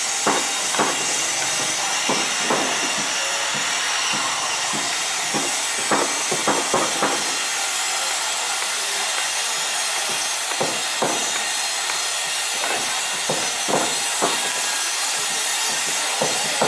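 Timber planks knocking and clattering as they are handled, in irregular scattered clusters, over a steady hiss.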